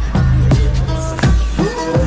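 Background music: a track with deep, steady bass notes and sharp drum hits about every three-quarters of a second. A tone rises in pitch and then holds near the end.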